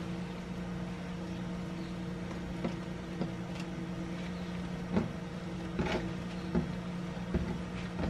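A steady low mechanical hum, with a few light taps and knocks from hands working panettone dough on the counter in the second half.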